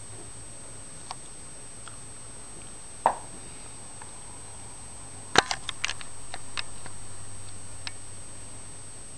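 Steady low hum with a few short, sharp clicks and taps: a faint one about a second in, a louder one about three seconds in, and a quick cluster of five or six a little after five seconds.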